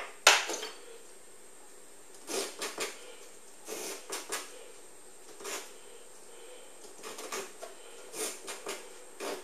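Short, quiet scrapes and clicks of small wooden model-railway sleepers being handled and dressed by hand on 100-grit sandpaper, in scattered bursts every second or so, with a louder one just after the start.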